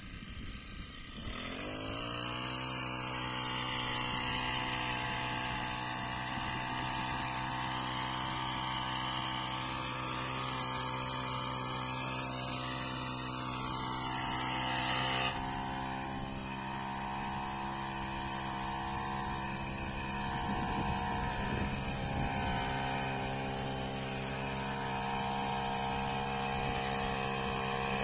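The small petrol engine of a backpack power sprayer running steadily at high speed. It comes up to speed with a short rise in pitch about a second in, and its sound shifts abruptly about halfway through.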